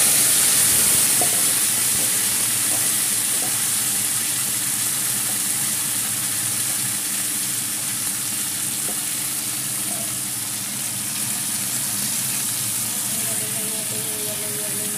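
Marinated chicken pieces sizzling loudly in a hot stainless steel pan, the hiss strongest at first and easing off gradually as the meat cooks. Near the end a spoon stirs the pieces.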